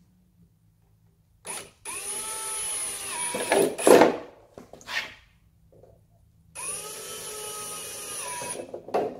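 Cordless drill boring holes through a plastic fender flare: two runs of motor whine, each a couple of seconds long, that spin up, hold a steady pitch and slow down. Each run ends in a few louder knocks as the bit finishes the hole.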